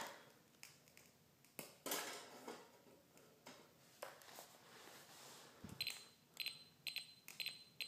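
A stainless steel saucepan set down onto the wire grate of an aluminium folding stove with a brief metallic clatter about two seconds in. Near the end a digital stopwatch beeps about five times in quick succession as its buttons are pressed to reset and start timing.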